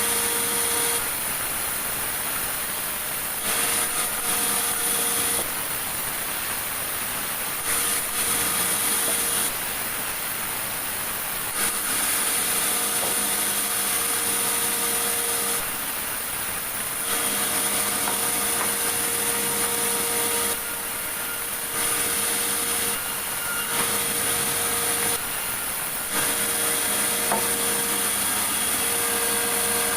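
Sawmill saw cutting large meranti logs: a steady machine run with a constant whine and rasping cut noise. It switches abruptly every few seconds between louder, brighter stretches and quieter ones.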